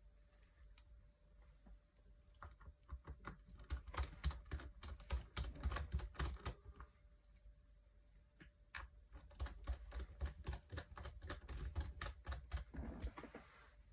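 Small, rapid clicks and taps in two runs, about two seconds in and again after a pause near the ninth second: a small hand screwdriver and tiny screws being worked into a MacBook Pro's display hinge brackets.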